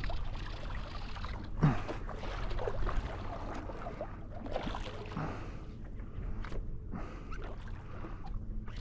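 Water sloshing and lapping around a stand-up paddleboard, with irregular small splashes and a few light knocks.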